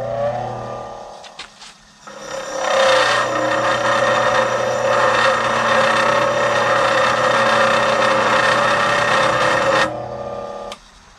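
Bench grinder running while a wheel-dressing stone is held against its fine grinding wheel: about two seconds in, a loud steady grating starts, lasts about eight seconds and stops, leaving the motor hum, which dies away near the end. The dressing is flattening the wheel and exposing fresh, clean abrasive.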